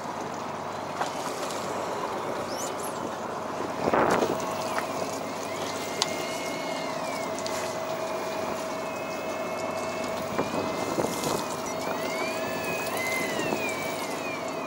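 Electric fishing reel winding in line: a steady motor whine starts about four seconds in, just after a loud handling knock, with a higher whine that rises and falls as the load changes, over boat and water noise.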